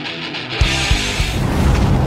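Background rock music with guitar, broken about half a second in by a heavy boom; a dense, louder low sound carries on after it.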